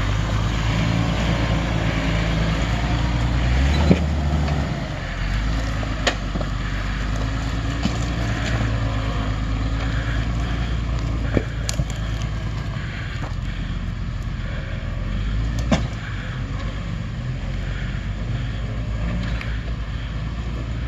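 Jeep Wrangler TJ's 4.0-litre straight-six engine running at low revs while crawling up rock steps, its revs shifting a few times. A few sharp knocks cut through it.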